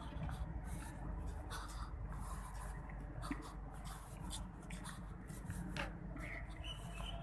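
Footsteps on a path and the rubbing of a hand-held phone as it is carried while walking, about two soft scuffs a second over a low steady rumble.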